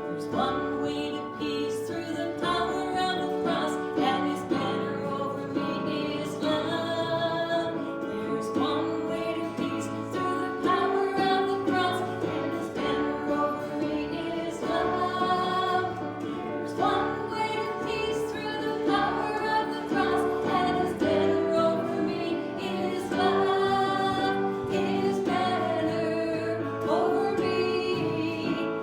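Congregation or worship team singing a gospel hymn with instrumental backing and a steady beat.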